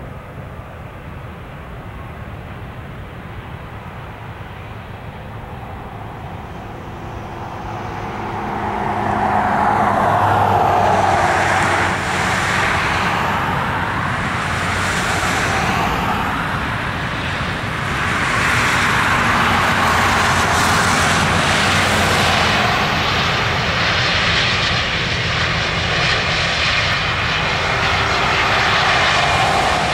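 Airbus A320 airliner's IAE V2500 turbofan engines running as the jet rolls out along the runway after landing. The noise grows steadily louder about a quarter of the way in as the plane nears, then stays loud while it passes close by.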